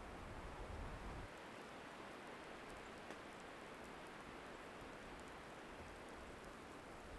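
Steady windy winter forest ambience: an even hiss of wind, with a low rumble of wind on the microphone for about the first second and faint scattered ticks later on.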